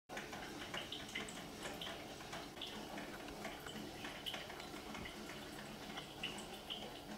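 Faint room ambience: a steady hiss with scattered short, high-pitched chirps or ticks coming irregularly throughout.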